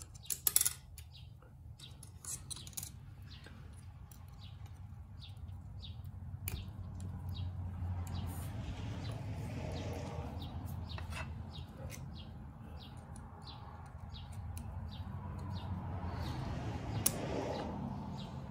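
Scattered light metal clicks and taps as valve springs, keepers and a pick are handled on a cast-iron diesel cylinder head, over a steady low hum.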